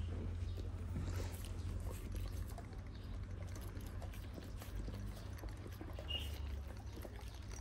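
Kangal puppy sniffing and licking a person's hand, small wet clicks and rustles over a steady low rumble. A bird chirps once near the end.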